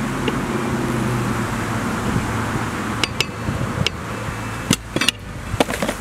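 Rubber riding-mower tire being worked by hand back onto its steel rim over a new inner tube. Several sharp knocks and clicks come in the second half as the tire is handled and its bead is pushed into place, over a steady low hum in the first half.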